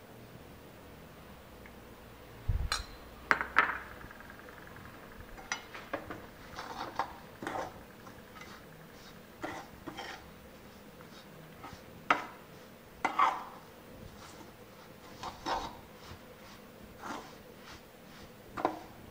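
Steel spoon scraping and clinking against a metal kadhai while stirring a crumbly flour, sesame and ghee mixture, in irregular strokes with a few louder clanks. There is a dull thump about two and a half seconds in.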